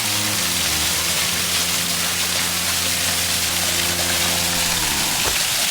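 Moonshine Falls, a small woodland waterfall, rushing steadily with a constant hiss of falling water. Under it, a held chord of low tones sits steady and then slides down in pitch, cutting out about five seconds in.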